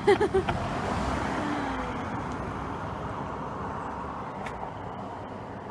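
A passing motor vehicle: its noise swells within the first second, then slowly fades away.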